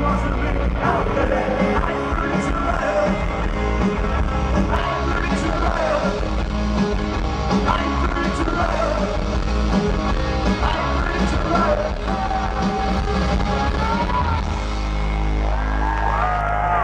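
Indie rock band playing live through a large outdoor PA, with electric guitars, drums, keyboard and a shouted lead vocal. Near the end the driving playing gives way to a long held chord.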